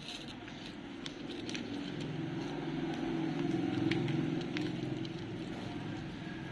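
Cat eating from a plate, with scattered small clicks of chewing and licking. A louder low rumble swells up through the middle and fades again.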